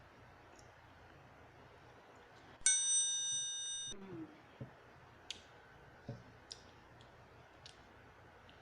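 A single bright ringing ding, like metal or glass being struck, that starts sharply and cuts off after about a second, followed by a few faint clicks.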